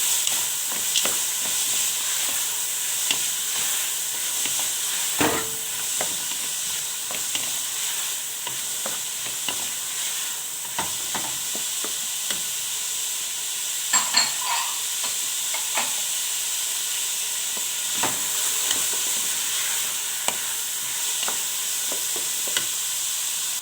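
Diced onion, red pepper, carrot and peas frying in oil in a pan: a steady sizzle, with a spoon clicking and scraping against the pan as the vegetables are stirred, and a louder knock about five seconds in.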